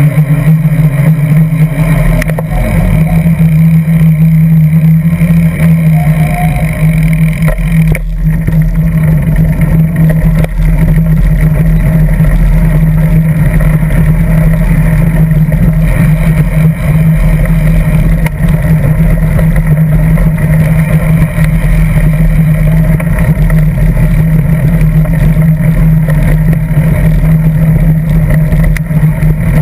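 Steady, loud rumble of wind and tyre noise on a bicycle riding over asphalt and gravel, with a constant low hum, picked up by a GoPro Hero 2 clamped to the seat post.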